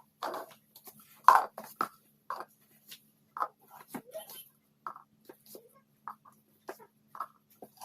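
Plastic cups being set down and stacked into a tower: a string of light, irregular clacks and taps, more than a dozen of them, over a faint steady hum.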